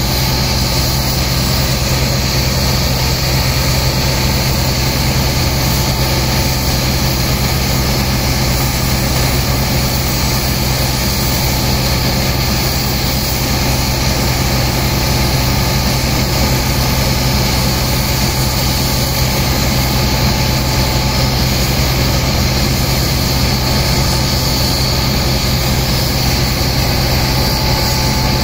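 Steady drone of a large engine driving the sand pump, with the hiss and splash of high-pressure water jets washing the sand into slurry.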